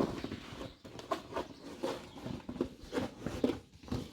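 A scatter of light, irregular clicks and knocks, several a second, from household items being handled and set down.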